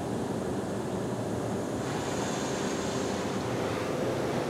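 Water and soap spray from a PDQ LaserWash 4000 touchless car wash beating on the car, heard from inside the cabin as a steady rushing wash. The hiss changes character about two seconds in.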